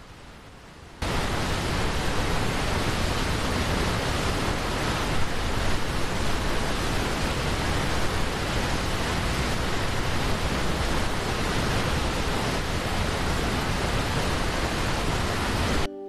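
Steady rushing of a large waterfall, an even wash of falling-water noise that comes in suddenly about a second in, after a faint hiss of a flowing river, and cuts off abruptly near the end.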